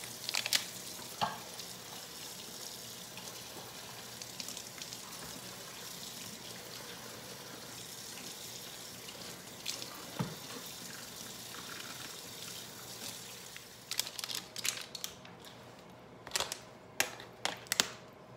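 Plastic whipped-topping tub being opened: a few sharp clicks near the start, then a quick run of plastic clicks and crackles in the last few seconds as the lid is pried off, over a steady hiss.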